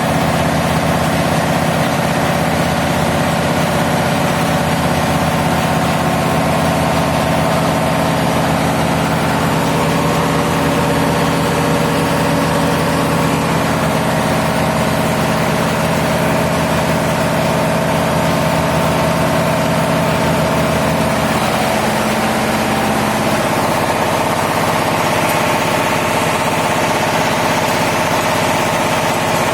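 Diesel engine running steadily, a loud constant drone. Its tone shifts slightly a little over 20 seconds in.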